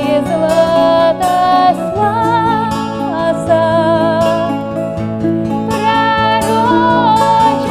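Live Greek-Russian folk music: bouzouki and acoustic guitar plucking chords, with a woman singing a slow, held melody with vibrato over them.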